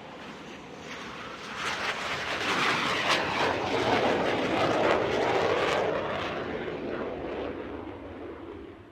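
Airplane flying past overhead: a rushing engine noise that swells to its loudest about four seconds in, then fades away.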